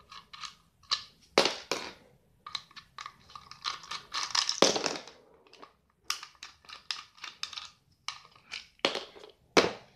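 Hard plastic parts of a take-apart toy car clicking, knocking and scraping as it is pulled apart and its plastic bolts are unscrewed by hand. The sound is a run of separate sharp clicks, with a longer scraping rustle about four seconds in.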